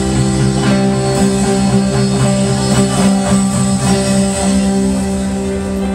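Instrumental post-rock band playing live over a festival PA, heard from within the crowd: layered electric guitars ring in steady held tones, with repeated picked notes over them.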